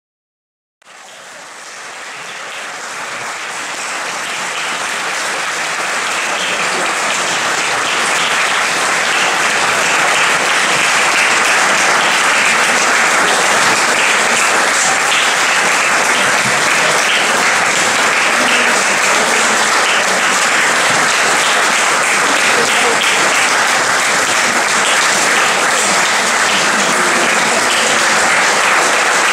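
Audience applauding: dense, steady clapping that starts about a second in and swells over the first ten seconds, then holds.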